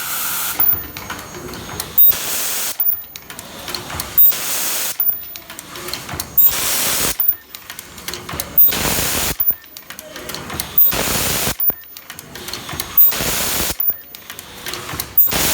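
Automatic plastic zipper film welding machine cycling about every two seconds: each cycle a sharp click followed by a half-second hiss of air, with lighter mechanical clicking between cycles.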